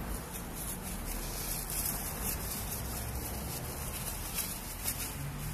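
Outdoor background noise with a low rumble and faint, scattered rustling crackles.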